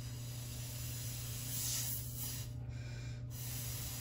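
Breath blown through a thin drinking straw into a rubber balloon taped to it, slowly inflating it: a breathy hiss, loudest about one and a half to two seconds in, with short breaks for breath later.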